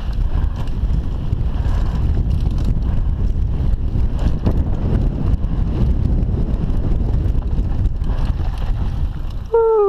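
Wind buffeting a helmet-mounted camera while a mountain bike runs fast down a dry, rocky dirt trail, its tyres crunching and the bike clattering over stones in scattered knocks. Near the end a short tone slides quickly downward.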